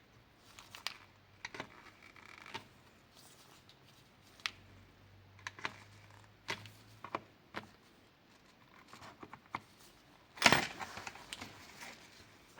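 Scattered small clicks and taps of tools and parts being handled at a workbench, with one louder clatter about ten and a half seconds in.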